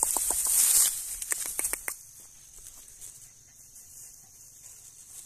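Dry rice stubble rustling and crunching underfoot for about two seconds, ending in a quick run of sharp crackles. After that, faint steady high insect chirring.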